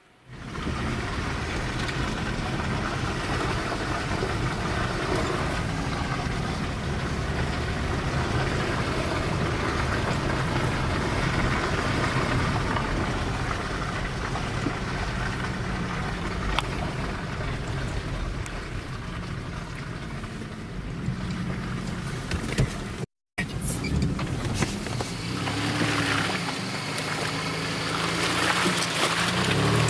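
Off-road SUV engines (Mitsubishi Pajero Sport and Toyota Land Cruiser Prado) running under load as the 4x4s drive through deep mud, with the tyres churning and splashing. The sound cuts out for a moment about three quarters of the way through, then resumes.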